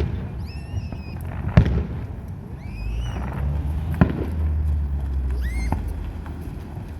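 Fireworks display: two sharp bangs of shells bursting, about one and a half and four seconds in, with a few short high whistling tones between them over a low rumble.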